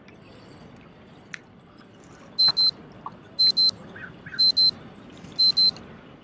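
Electronic alarm beeping: four pairs of short, high beeps, one pair about every second, starting about two and a half seconds in.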